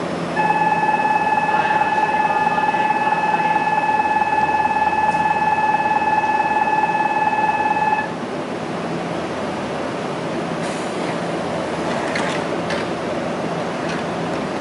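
Station departure buzzer sounding one steady high tone for about eight seconds over the constant hum of a stopped Nankai electric commuter train. A few seconds after it stops, the train's sliding doors close with a couple of knocks.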